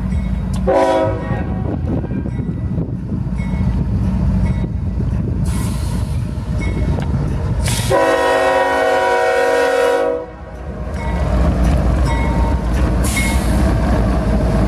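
CSX GE ES44DC diesel locomotive sounding its horn for a grade crossing: a short blast about a second in, then a long blast of about two seconds past the middle. Under the horn is the steady rumble of its V12 diesel engine, which grows louder in the last few seconds as the locomotive passes close.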